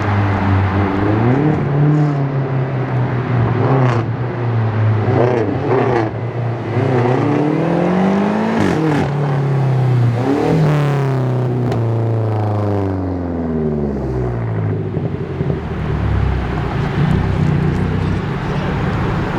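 Car engine revved several times, its pitch climbing and falling back with each blip, then dropping back to idle near the end.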